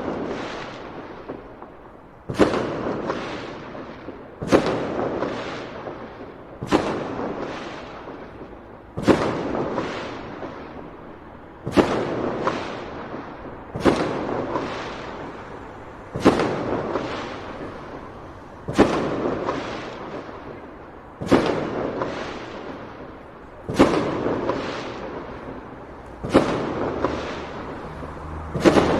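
Large aerial firework shells bursting one after another, about one every two and a half seconds. Each is a sharp bang, often with a smaller crack just after, then a long fading rumble before the next.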